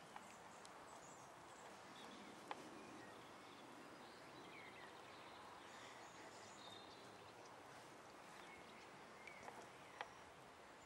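Near silence: faint outdoor ambience with distant birds chirping and a couple of soft clicks, one about two and a half seconds in and one near the end.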